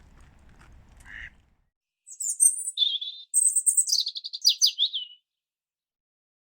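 Small songbird chirping: a few high chirps starting about two seconds in, then a quick run of falling twittering notes that stops about five seconds in.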